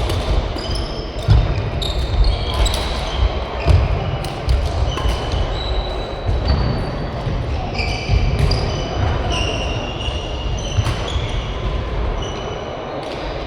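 Badminton doubles play on an indoor court: shoe soles squeaking repeatedly on the court floor, footfalls thudding, and sharp racket strikes on the shuttlecock.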